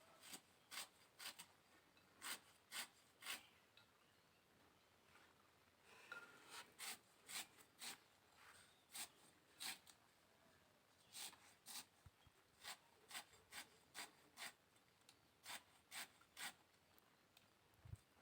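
Faint, rhythmic cutting strokes of a blade slicing banana flower (banana blossom), about two a second in three runs with short pauses between them.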